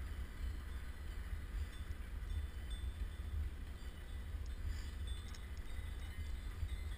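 Wind buffeting the microphone of a recumbent trike's handlebar camera, with a steady low rumble as the trike rolls downhill on asphalt. Faint, scattered high tinkling sits above it.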